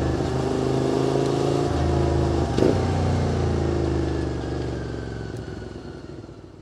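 QJ Motors SVT 650X motorcycle's V-twin engine running through an aftermarket Arrow Racetech exhaust, holding steady revs, with a brief click about two and a half seconds in. The sound fades away over the last two seconds.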